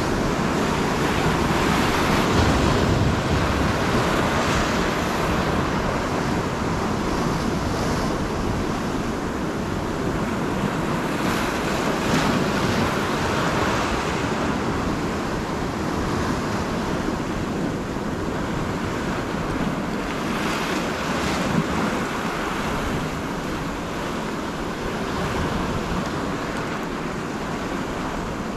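Ocean surf washing and breaking against coastal rocks, a continuous rushing with brief swells, with wind buffeting the microphone.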